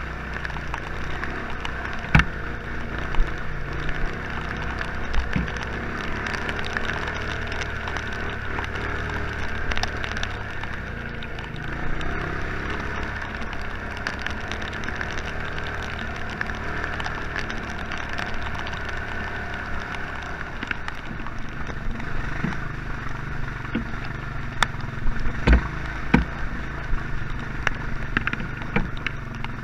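Honda Fourtrax ATV engine running steadily, with sharp knocks and clatter now and then, several of them near the end.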